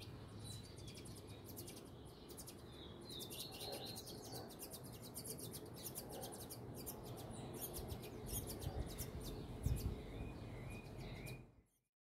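Songbird nestlings begging at the nest with rapid, very high-pitched cheeps while the parent feeds them, with a few lower chirps among them. A few low thumps come near the end, and the sound fades out just before the end.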